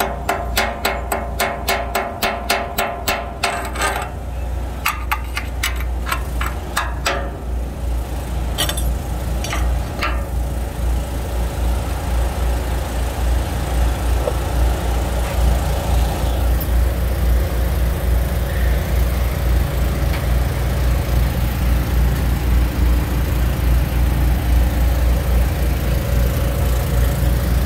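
Chipping hammer striking a fresh stick weld to knock off the slag, steel on steel, in a fast even run of about five blows a second for the first four seconds, then a few scattered blows up to about ten seconds in. A steady low engine drone runs underneath and carries on alone after the chipping stops.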